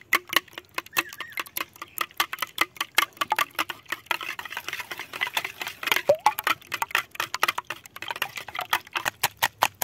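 Wire whisk beating eggs in a glass bowl: a fast, even run of clicks as the tines strike the glass, about four to five a second.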